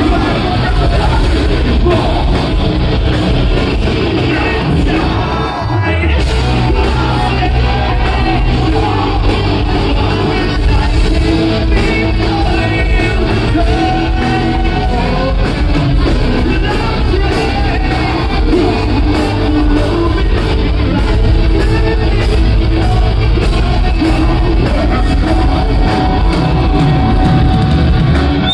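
Live heavy rock band playing loud, with sung and yelled vocals over the guitars and drums.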